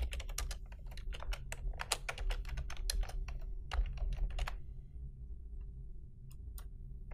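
Typing on a computer keyboard: a quick run of key clicks for about four and a half seconds, then two single clicks near the end, over a faint low hum.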